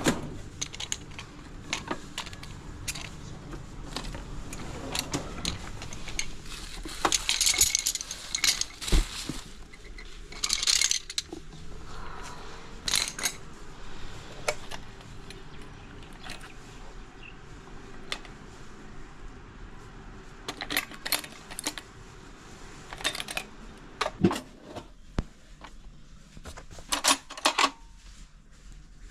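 Small metal hand tools and screws clinking and rattling in scattered bursts, with sharp clicks of parts being handled, as a motorcycle's headset and speedometer housing are taken apart.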